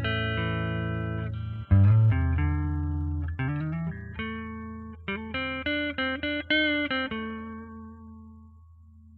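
Clean electric guitar (Fender Telecaster) played through an LPB-1-style clean booster pedal into a Fender Twin clean amp model. A chord rings on, a low note is struck with a slide up, then a quick run of single notes rings out and fades away.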